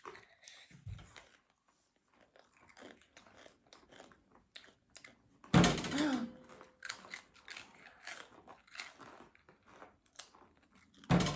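Crunchy rolled corn tortilla chips (Takis) being bitten and chewed close to the microphone, a series of short, sharp crunches. About halfway through there is a louder burst with a brief vocal sound.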